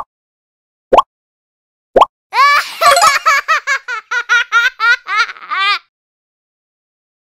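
Three short rising blips, one a second, then a cartoon baby's giggle: a quick run of high, bouncing laugh syllables lasting about three and a half seconds.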